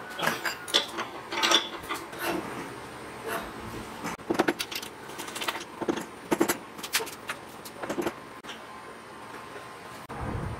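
Irregular metal clinks and knocks of a spanner on a nut and bolt and of the steel parts of a homemade mortiser's sliding table being handled and moved. A low dull thump comes near the end.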